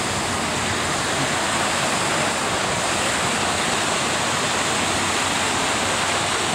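Steady rush of a waterfall pouring into a pool.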